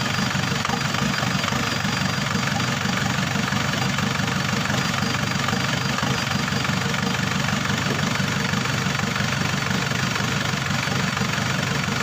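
Isuzu Trooper's 4JX1 four-cylinder turbo diesel idling steadily with a slight misfire.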